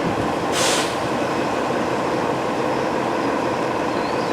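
Steady rumble of passing vehicle traffic, with a short hiss about half a second in.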